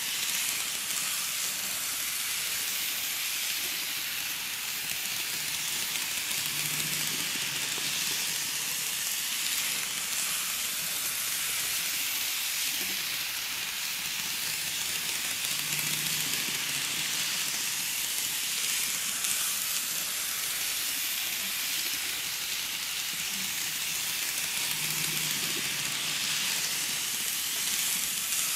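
KATO N-gauge JR 211 series model train running around a track loop: a steady rolling hiss of the wheels and motor, with a low hum swelling about every nine seconds as the train passes close.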